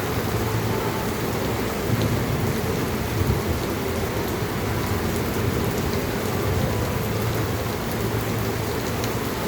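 Heavy rain falling steadily, a constant hiss with a low rumble underneath.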